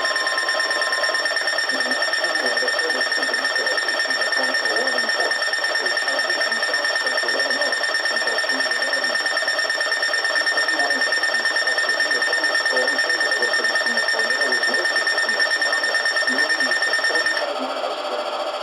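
Weather alert radio sounding a steady high-pitched alarm tone that cuts off about 17 seconds in, the alert that comes before a new tornado warning message. A fainter, lower warning tone runs under it for the first second.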